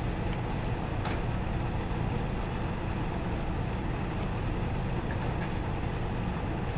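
Steady low rumble of background noise, with a faint click about a second in.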